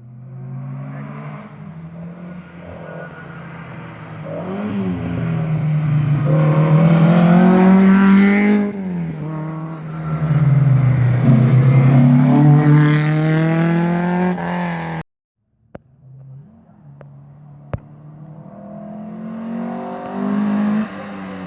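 Rally car engine accelerating hard, climbing in pitch and dropping back at each gear change, as the car comes past. The sound cuts off abruptly about two-thirds of the way through, and another rally car is then heard approaching, its engine rising.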